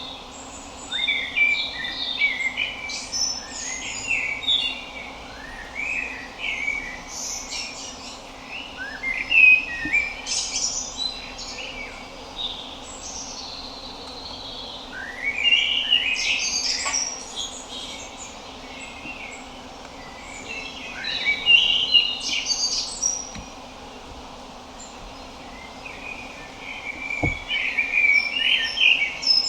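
Common blackbird (Turdus merula) singing: quick runs of whistled and twittering notes in about five separate phrases, with pauses of a few seconds between them.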